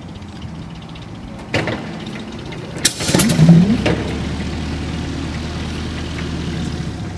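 Rolls-Royce Merlin liquid-cooled V-12 aero engine starting: it turns over steadily, pops about a second and a half in, then catches around three seconds in with a loud burst of bangs from the exhaust stacks and settles into steady running.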